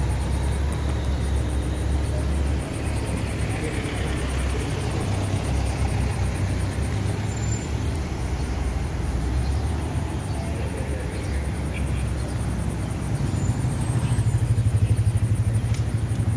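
Cars and vans driving slowly past, a steady low rumble of engines and tyres that grows louder near the end as a van passes close.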